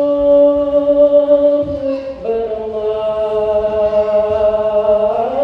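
A single voice chanting long, drawn-out melodic notes, holding one pitch and then stepping to a new one about two seconds in.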